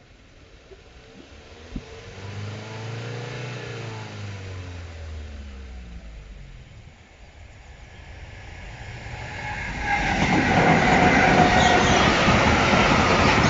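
A road vehicle drives past, its sound rising and fading over a few seconds. Then a freight train of heavy hopper wagons comes up and rolls loudly through the level crossing from about ten seconds in, its wheels rumbling on the rails with a thin squeal in the noise.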